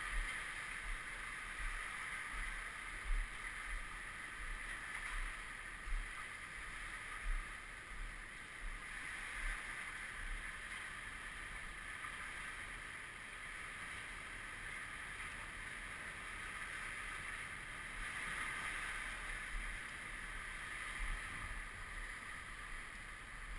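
Lake water washing on the flooded shore as a steady rush that swells about every nine seconds, with scattered low thumps of wind on the microphone.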